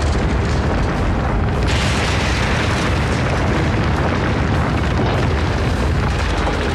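A huge explosion as a cartoon sound effect: a loud, dense rumble that goes on without a break, with more hiss and crackle coming in about two seconds in.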